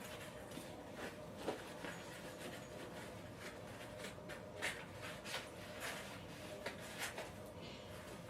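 Hands working on an animatronic's parts and wiring: scattered light clicks and rubs at irregular intervals, about a dozen in all.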